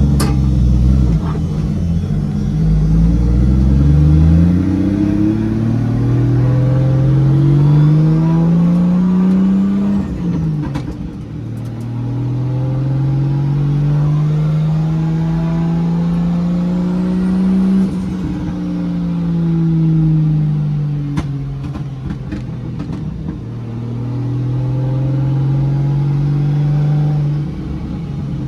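Nissan C33 Laurel's engine accelerating through the gears: the revs climb in two long pulls, each ending in a sharp drop at a gear change. The revs then fall off before a third climb, with a faint high whine rising along with the first two pulls.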